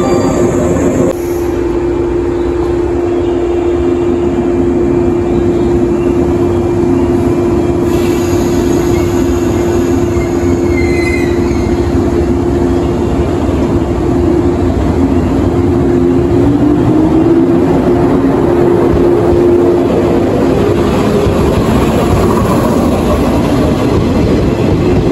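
JR 115 series electric multiple unit with a steady electrical hum as it stands at the platform. It then starts away, and a tone rises about two-thirds of the way through as it gathers speed.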